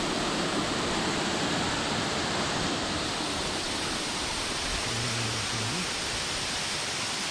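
Waterfall rushing steadily down a rocky streambed, heard close to the falling water.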